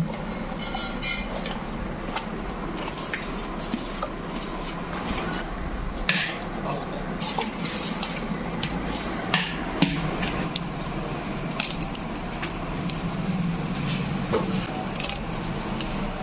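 A long-handled metal spatula stirring and folding a thick custard-and-cream trifle mixture in a large metal pot: wet squishing with irregular clicks and scrapes of metal against the pot.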